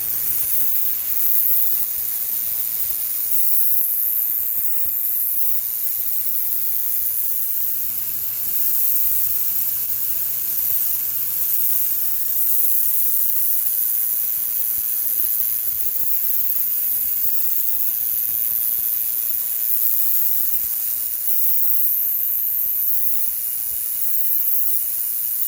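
Greenworks 2000 psi electric pressure washer spraying: the water jet makes a steady, high hiss.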